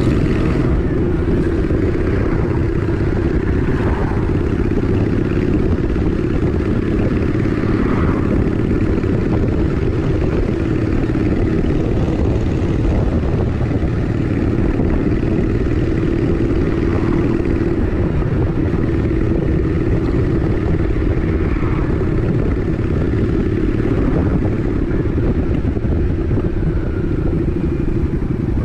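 Honda Shadow 750 ACE V-twin motorcycle engine running while riding at town speed, its note shifting briefly a few times. Wind rumble sits on the microphone.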